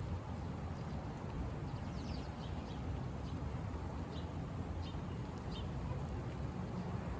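Steady low rumble of a car driving, with a string of short, high chirps in the middle.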